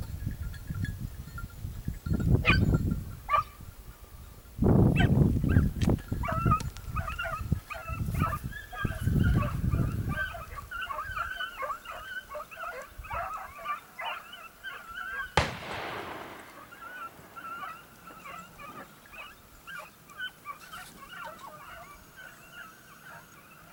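A pack of hare hounds baying continuously on a hare's trail, many faint overlapping voices from about six seconds in onward. Low microphone rumble fills the first ten seconds, and about fifteen seconds in a single gunshot cracks and echoes for a second or two.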